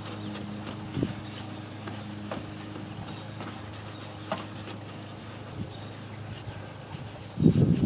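Hand wet-sanding of a plastic headlight lens with a sanding pad: soft rubbing with scattered light ticks over a steady low hum. A loud bump or handling noise comes near the end.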